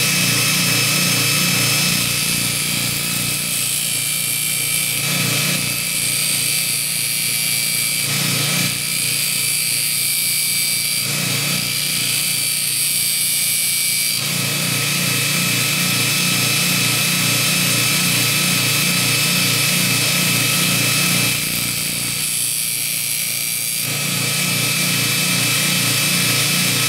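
Belt grinder, a 1/2 hp Baldor motor driving a 100-grit zirconia belt over a 10-inch expander wheel, running steadily while a steel fuller is ground cold against the belt. The motor hum stays constant while the grinding hiss shifts every few seconds as the steel is pressed on, moved across and eased off the belt.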